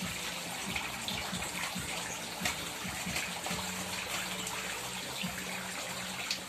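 Steady splashing and trickling of many thin jets of water spraying from perforated pipes into a live shrimp holding tank, with small splashes throughout.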